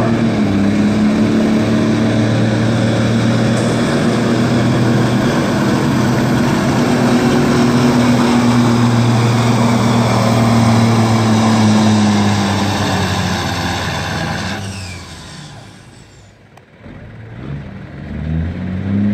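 Semi truck's diesel engine running hard under load as it pulls a weight sled, its pitch holding fairly steady. The sound drops away sharply about fifteen seconds in, and another engine comes up faintly near the end.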